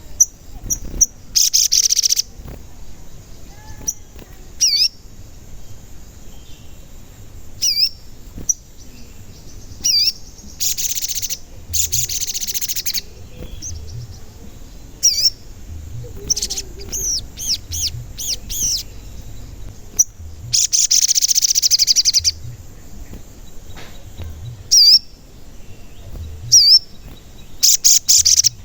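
Sogon bird calling: short, sharp "cuit cuit" whistled notes repeated at uneven intervals, broken up by several louder one-to-two-second bursts of rapid chattering notes.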